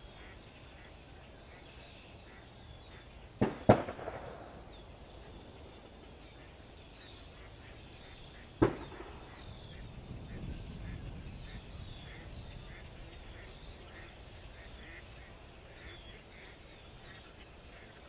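Distant duck hunters' shotgun shots echoing across the lake: two quick shots about three and a half seconds in, then a single shot about five seconds later. Ducks quack faintly between the shots.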